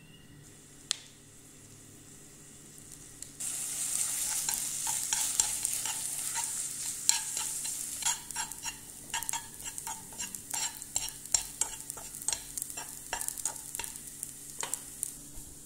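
Rice vermicelli with soy sauce frying in a nonstick pan while it is stirred: a sizzle starts suddenly a few seconds in, with a utensil clicking and scraping against the pan many times, thinning out near the end. A single click sounds about a second in.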